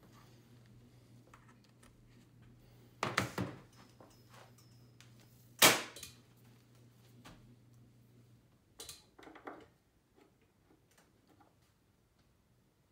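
SoundTech MC100 powered monitor's speaker giving a steady low mains hum, broken by sharp pops and crackles as a lead is worked into its input jacks. The loudest pop comes about halfway, and the hum stops about two-thirds through.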